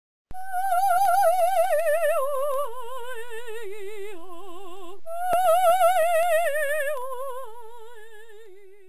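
A woman singing a wordless, operatic-style vocalise with wide, even vibrato: two phrases, each stepping down in pitch, the second fading away near the end.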